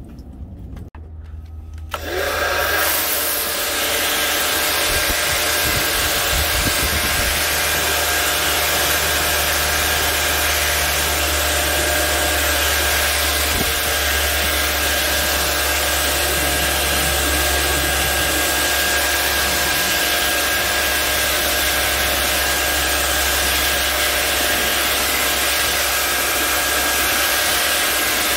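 Pressure washer running an undercarriage cleaner attachment, its nozzles spraying water against a car's underbody: a steady hiss of spray over a low motor hum. The spray drops off briefly at the start and comes back on about two seconds in.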